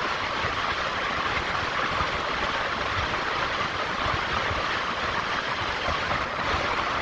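Steady road and engine noise of a car driving, an even rushing sound over a low rumble.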